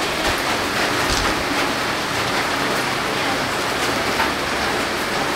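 Steady rain falling and splashing on surfaces: an even hiss flecked with scattered drop hits.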